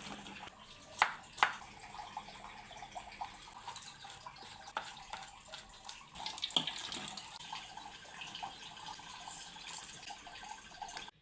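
Water running from a tap into a sink, with small splashes and clatter, and two sharp knocks about a second in.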